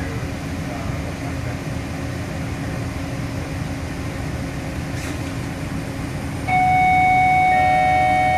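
Detroit People Mover car running on its elevated track with a steady rumble. About two-thirds of the way in, a loud, sustained, multi-pitched squeal sets in suddenly as the steel wheels grind around the curve, with further pitches joining near the end.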